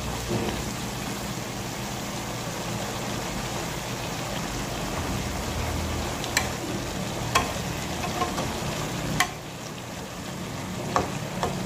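Stir-fry of green beans and chicken sizzling steadily in a nonstick wok as a metal spatula stirs it. In the second half the spatula clacks sharply against the pan about half a dozen times.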